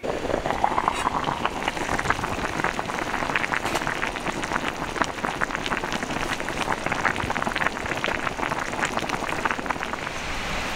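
Dense crackling patter of water with a steady hiss beneath, starting suddenly; the crackles thin out near the end and leave a smoother hiss.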